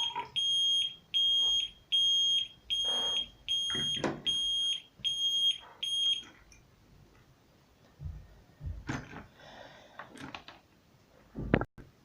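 Homemade water-leak alarm's small siren sounding: a steady high-pitched beep repeated a little faster than once a second, set off by water bridging the two bare sensor wire ends. The beeping stops about six seconds in, followed by a few faint handling clicks.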